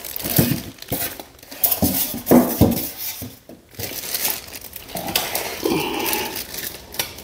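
Clear plastic wrapping crinkling and rustling as the bagged coffee grinder is handled and pulled out of its foam packaging, with a few soft knocks among the rustle.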